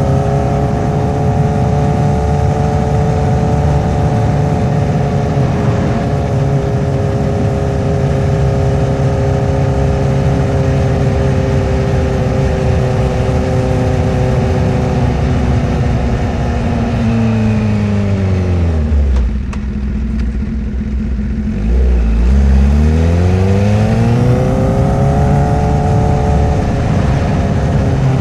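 2008 Honda CBR1000RR Fireblade's 999cc inline-four engine running steadily under way. About two-thirds through, the revs fall sharply to a low near-idle note as the bike slows. A few seconds later the engine revs back up with a rising pitch as it accelerates, then settles into a steady run again.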